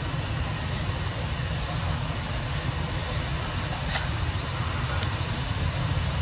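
Steady outdoor background noise with a strong low rumble, and a faint click about four seconds in and another about a second later.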